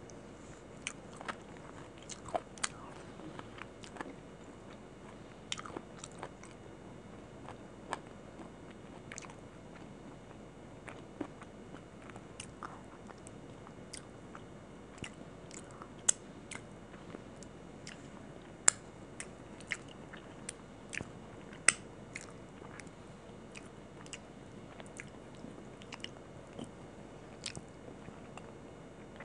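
Close-miked wet mouth sounds from eating by hand: irregular lip smacks and clicks as curry-sauced fingers are licked and sucked clean, with some chewing. A few smacks about halfway through and later are much sharper than the rest.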